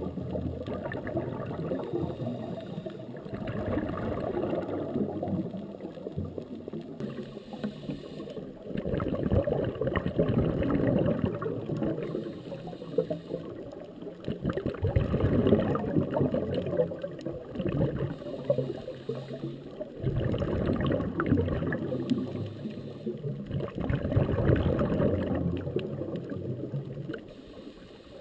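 Underwater sound of a scuba diver's exhaled bubbles, a low gurgling and rumbling that swells and fades every four to six seconds with the breaths.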